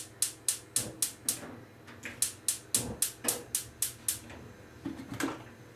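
Gas hob's spark igniter clicking rapidly, about four clicks a second in two runs, while the burner under a pressure cooker is lit. A single knock near the end.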